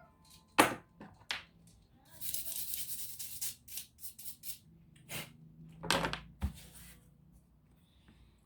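Hands working on laptop parts: a string of sharp plastic-and-metal clicks and knocks, with a short rasping scrape or rustle about two seconds in.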